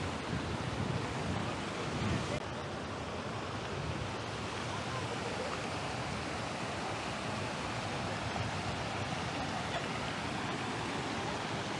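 Steady outdoor rushing noise, with wind gusting on the microphone in the first couple of seconds.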